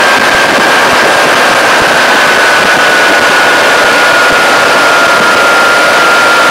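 Loud, steady wind rush over the microphone of a camera on a moving motorcycle. A thin high whine runs through it and slowly sinks a little in pitch.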